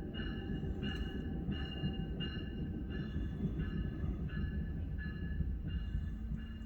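Train's warning bell ringing steadily, about one and a half strikes a second, over the low rumble of a commuter train arriving at a station.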